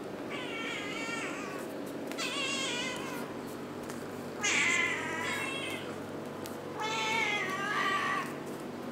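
A cat meowing four times, each meow about a second long with a wavering pitch; the third and fourth are the loudest.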